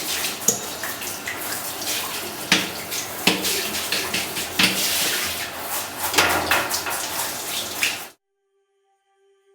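Running tap water splashing over an air conditioner's plastic filter and grille as they are washed, with several knocks of plastic being handled. The water cuts off suddenly about eight seconds in.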